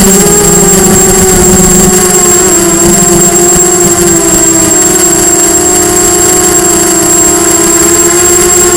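Diatone Blade 250 quadcopter in flight: its four brushless motors and propellers whine loudly and steadily, the pitch drifting gently with the throttle, heard close up through the onboard Mobius camera's microphone. A thin, steady high-pitched tone sits above the motor whine.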